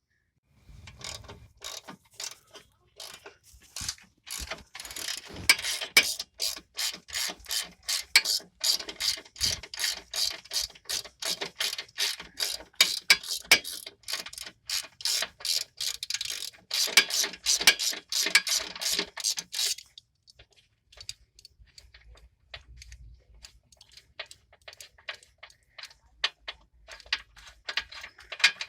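Hand socket ratchet clicking in repeated strokes, about three clicks a second, as bolts on the front brake caliper are undone. The clicking stops about two-thirds of the way through, and a few fainter, scattered clicks follow.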